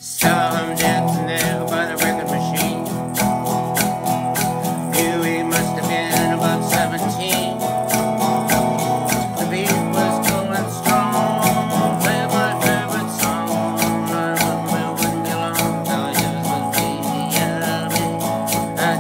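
Acoustic guitar strummed steadily, full chords in an even driving rhythm.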